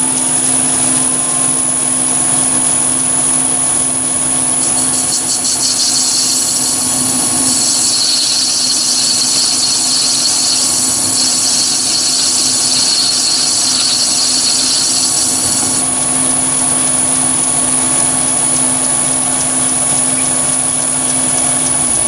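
Chinese mini lathe running steadily with a high-pitched whine while a 1.5 mm carbide grooving insert plunges into a spinning brass bar. The cut adds a hiss from about five seconds in until about sixteen seconds in.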